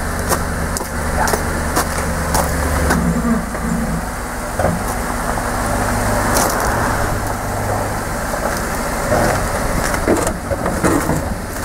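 Pickup truck engine idling, a steady low hum, with scattered light clicks and knocks over it.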